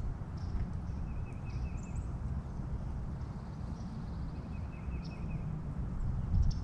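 Small songbirds twittering faintly, with two short trilled phrases and a few thin high notes, over a steady low rumble of wind on the microphone.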